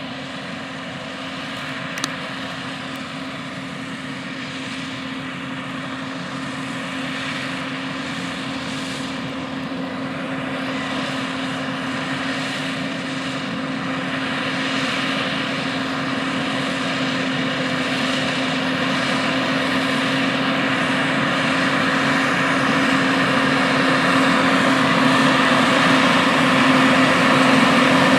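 Case IH Magnum 380 CVT tractor's diesel engine running steadily under load as it pulls a no-till planter, growing steadily louder as it comes closer. A single brief click about two seconds in.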